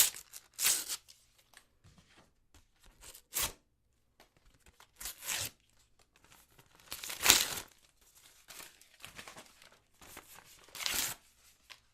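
Letter paper being torn in a series of separate rips with short pauses between, some quick, some drawn out for about half a second, the loudest just after the start and about seven seconds in.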